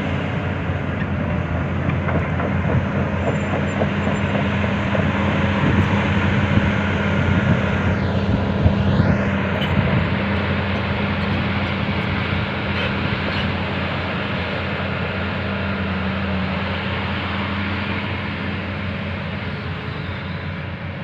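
Excavator's diesel engine running steadily at close range, a constant hum under a wide mechanical noise.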